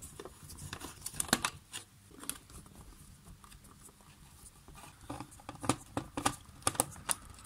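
Light clicks, taps and rustles of hands handling a circuit board, its thin wires and the plastic case of a cassette multitrack recorder. A quick run of clicks comes about a second in and a busier run from about five seconds.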